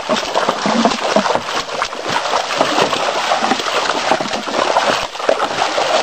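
Several people wading through a shallow stream, footsteps splashing and sloshing in the water in an irregular patter.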